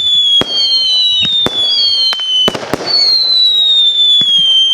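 Firework barrage firing whistling shots: several overlapping whistles, each falling slowly in pitch for about two seconds and cut off by a sharp bang, with further bangs in between.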